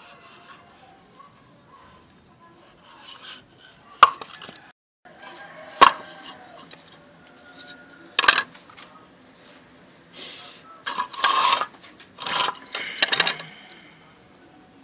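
Handling noise from a homemade wooden speaker box and its parts: three sharp knocks a couple of seconds apart, then a run of clattering and rustling a little over ten seconds in, as the box, its wooden front panel and a wired amplifier board are handled.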